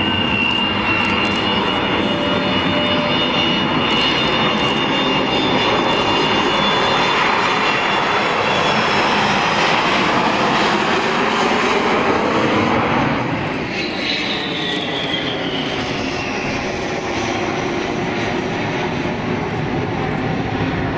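Avro Vulcan bomber's four Rolls-Royce Olympus jet engines roaring in a low pass overhead, with a high steady whine at the start that fades as the roar builds. The roar drops sharply about thirteen seconds in as the jet passes, followed by a whine falling in pitch as it moves away.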